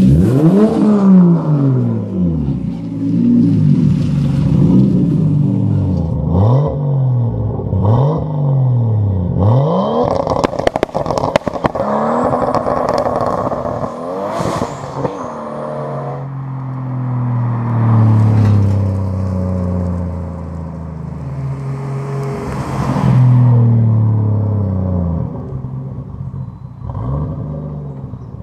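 A Nissan S14 with an RB25 straight-six and blast-pipe exhaust is revved about six times, the pitch climbing and dropping each time. Then a Nissan S13 with antilag crackles and pops for several seconds before its engine pulls away in long rising and falling sweeps.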